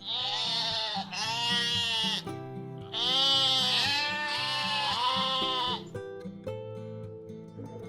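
An animal calling over background music: four long calls in two pairs, each rising and then falling in pitch, with a gap of about a second between the pairs.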